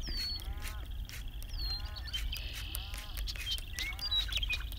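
Pond wildlife calling: a short arched call repeats about once a second over a steady, high-pitched pulsing trill, with a few brief whistled bird notes. Low wind rumble on the microphone.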